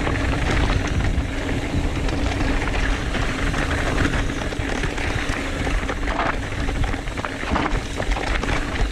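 Trek Fuel EX 7 full-suspension mountain bike clattering down a rocky trail at speed: tyres striking rock, with many sharp knocks from the frame and drivetrain. Heavy wind rumble on the microphone runs under it.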